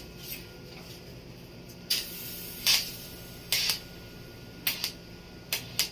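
Electric arc welding on the bracket under a stainless steel grill: about six short hissing bursts of arc, each a fraction of a second, as the welder tacks the joint, over a steady low hum.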